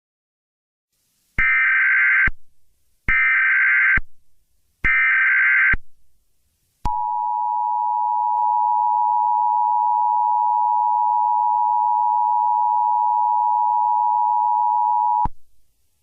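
Emergency Alert System tones: three short bursts of SAME digital header data, each just under a second, then the EAS two-tone attention signal, a steady dual tone held for about eight seconds. Together they announce an emergency alert about to be read.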